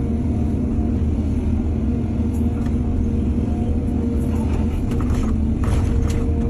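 Heavy diesel excavator engine running steadily under load, with a few sharp scrapes and clatters about two-thirds of the way through.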